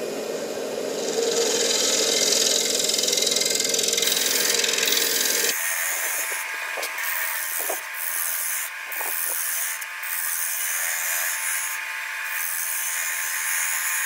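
Turning tool scraping and cutting inside a spinning Fijian mahogany bowl on a wood lathe, a steady hiss of a light finishing cut. It is loudest from about a second in, then changes abruptly and thins about five and a half seconds in.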